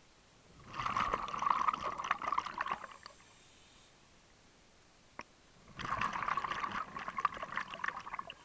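A scuba diver breathing through a regulator underwater, heard as two bursts of exhaled bubbles, each about two seconds long and about five seconds apart. A single faint click comes between them.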